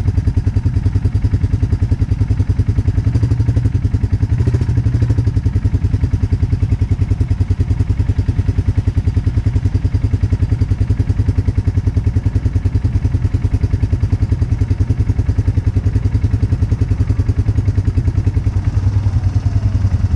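ATV engine idling with a steady, even throb, the machine standing still.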